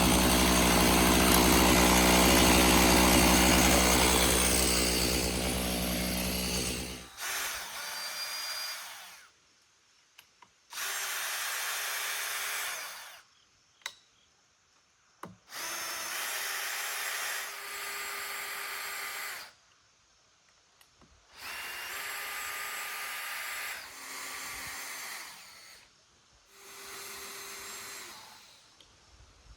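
Chainsaw engine running loud and steady, then shutting off about seven seconds in. After it come about five short bursts of a small electric power tool whirring with a steady whine, each lasting one to four seconds, with quiet gaps between.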